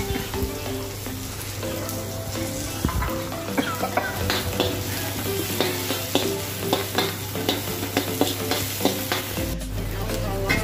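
Vegetables sizzling in a hot oiled wok while a steel ladle stirs and scrapes them, with frequent short clicks and scrapes of metal on metal over a steady frying hiss.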